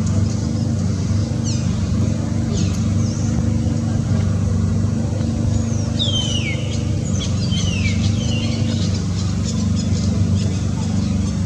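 Steady low mechanical hum, with a few quick high chirps that fall in pitch, most of them bunched between about six and eight seconds in.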